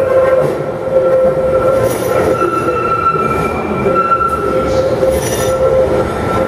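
London Underground 1972 Stock tube train running into a curved platform and slowing, its wheels giving a steady high squeal over the rumble of the passing cars.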